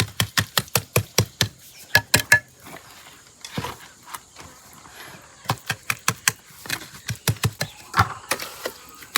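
Runs of quick, sharp taps and knocks, several a second, in bursts with short pauses between them.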